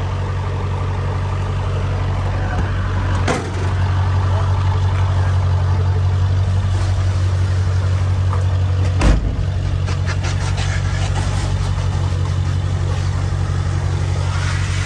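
A steady low engine drone with a jet of water spraying against a van's windshield, heard from inside the cab. Two brief knocks come about three and nine seconds in.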